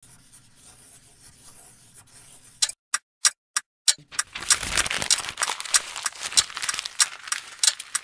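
A sheet of drawing paper being crumpled into a ball: a dense, crackling crinkle that starts about halfway through, after four sharp single clicks.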